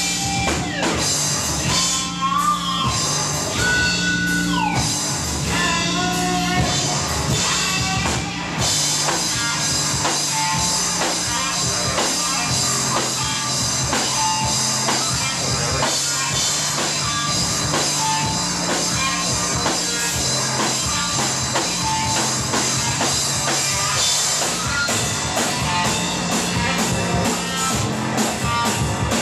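Live band playing: synthesizer with gliding tones over electric guitar and drum kit. About eight seconds in, the band settles into a steady, dense beat.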